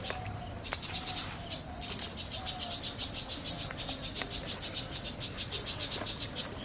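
Insect chirping in a fast, even train of high-pitched pulses, about five or six a second, with a few faint clicks.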